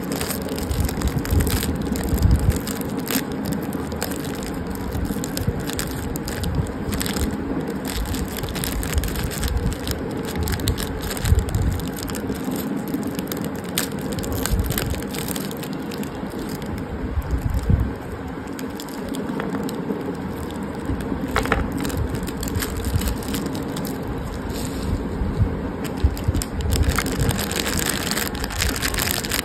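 Foil-lined plastic snack wrappers of mini wafer rolls crinkling and crackling as hands tear them open at the seam and handle them, with many small snaps.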